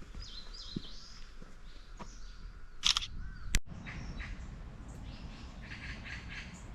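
Small birds chirping, with a low outdoor background rumble; a sharp click sounds about three and a half seconds in.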